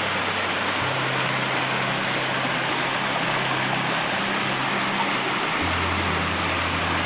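Mountain stream rushing with a steady hiss, under soft background music of held low notes that change every few seconds.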